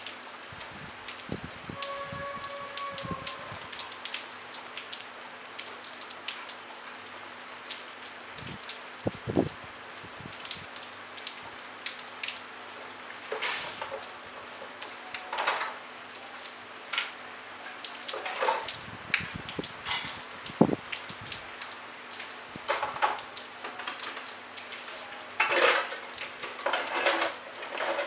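Light rain falling: a steady hiss of rain with individual drops striking close by, and scattered louder clusters of drips.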